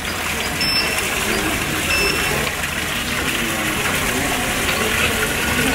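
Steady rushing noise like running water, with faint voices underneath. Two short high beeps come about a second and two seconds in.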